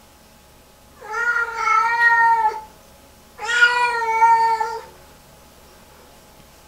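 Lynx point Siamese cat giving two long, steady meows, each about a second and a half, one about a second in and the second near the middle. They are distress calls, part of the meltdown she has in the bathroom hours after a bath.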